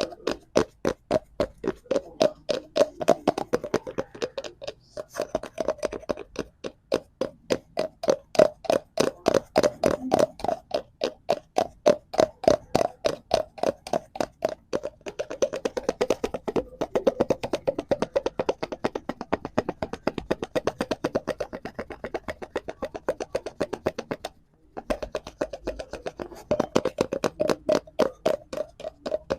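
Fingers tapping rapidly and steadily on a cardboard prop, several taps a second, with a short break about 24 seconds in.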